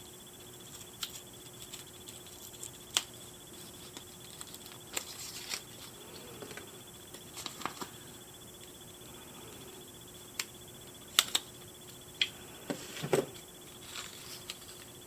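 Hands handling a plastic doll: scattered small clicks, taps and light rustles as cardboard is taken off its knees and the knee joints are flexed, with the sharpest clicks about three seconds in, near eleven seconds and a short cluster near the end. A faint steady hum runs underneath.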